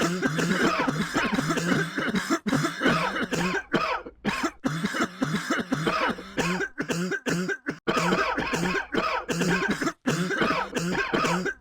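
Repeated coughing, one cough after another with hardly a break, interrupted by a few brief silences.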